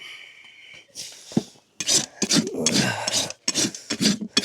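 Farrier's rasp drawn across a horse's hoof in regular strokes, about two a second, starting about two seconds in after a faint ringing.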